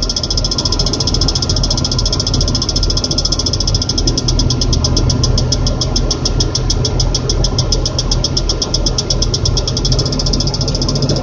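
Crane load moment indicator (LMI) alarm giving rapid, evenly spaced high beeps, the warning that the crane is approaching its overload capacity, over the steady low drone of the crane's engine. The beeping fades near the end.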